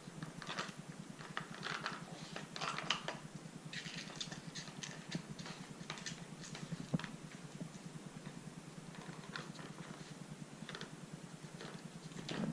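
Dog nosing and pawing a Nina Ottosson Dog Tornado plastic treat puzzle: scattered light plastic clicks and knocks, with short breathy bursts between them.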